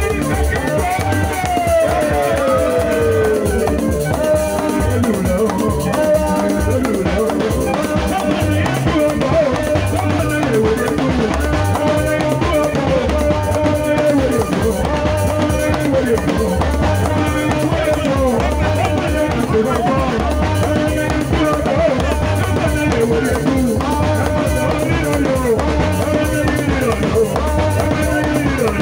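Band music with drum kit, bass drum and guitar playing a steady beat, with a falling melodic glide in the first few seconds.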